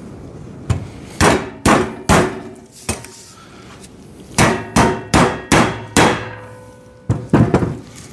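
Steel tubes of a foldable steel welding table being knocked into the frame: about a dozen sharp blows in three quick bursts, the steel ringing after each.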